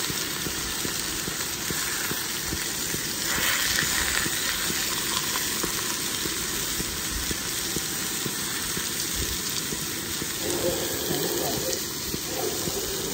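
Marinated beef steaks sizzling steadily in a hot cast-iron skillet as they are pan-seared, the sizzle swelling briefly about three seconds in.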